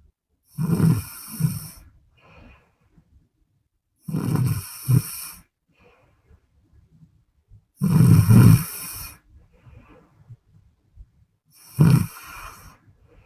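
A woman snoring: four loud snores about four seconds apart, with fainter breaths between them.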